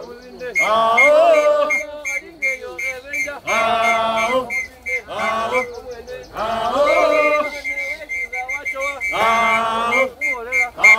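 A group of men chanting in short sung phrases every few seconds as they walk in a Bukusu circumcision procession, with a whistle held on a steady note in the second half.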